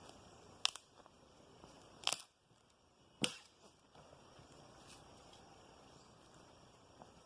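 Three sharp impacts about a second and a half apart, the first two in the opening seconds and the last a little after three seconds in, with a few fainter clicks.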